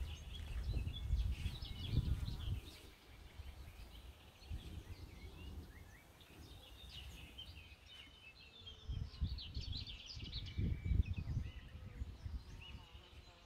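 Songbirds chirping and singing in quick, scattered notes, with low rumbling surges in the first two seconds or so and again about nine to eleven seconds in.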